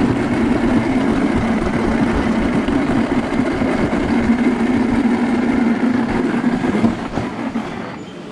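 Toboggan sled running fast down a stainless-steel trough slide: a loud, steady rumble of the sled in the metal chute. It dies down near the end as the sled slows into the finish.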